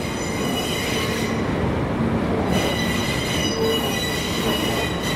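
Steel train wheels squealing against the rails on a curve as a DE10 diesel-hydraulic locomotive slowly hauls rail cars, the high ringing squeal coming in two stretches, the second longer. Underneath runs the low rumble of the locomotive's diesel engine.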